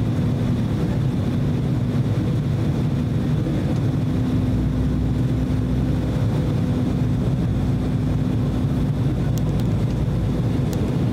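Steady cabin noise of an Embraer E190 airliner on approach: the even roar of its two CF34 turbofan engines and the airflow over the fuselage, with a low steady hum. A few faint clicks come near the end.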